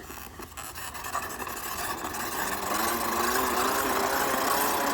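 Toy bubble lawn mower's small battery motor whirring, growing louder over the first few seconds and then running steadily.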